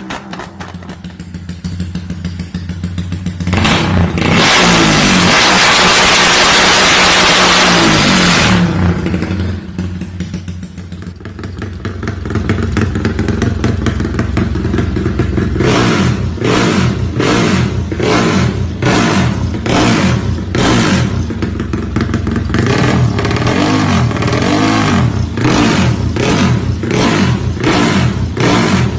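A Yamaha Y15ZR's 150 cc single-cylinder four-stroke engine idling, then revved hard and held for about four seconds. After dropping back, the throttle is blipped again and again, about once a second, in short sharp revs.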